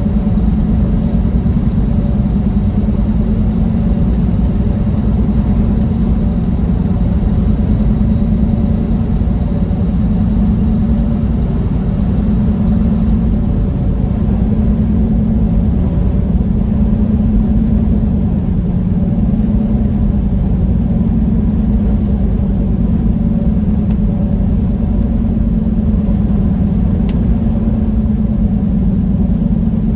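Semi truck's engine and road noise droning steadily from inside the cab while cruising, a low rumble whose pitch wavers only slightly.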